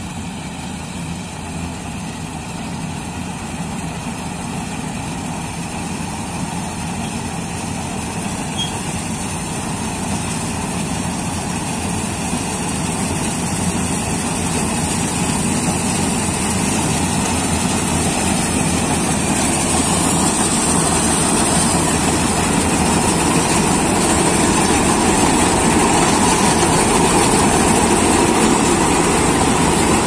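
Jaswant 950 combine harvester running while cutting wheat, its engine and threshing machinery growing steadily louder as it comes closer and passes right alongside.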